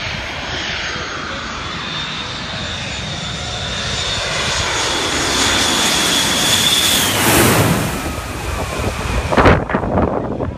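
Jet airliner on low final approach passing directly overhead: the engine whine and rumble build steadily, peak as it passes, then fall in pitch as it moves away. Rough bursts of loud noise follow near the end.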